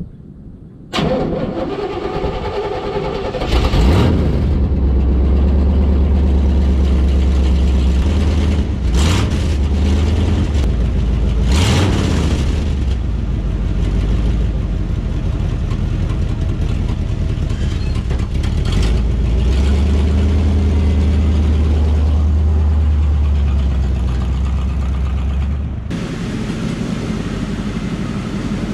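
1979 Chevrolet C10 pickup's engine starting about a second in, then revved several times, with pitch rising and falling, and held at raised revs for several seconds before dropping back down near the end.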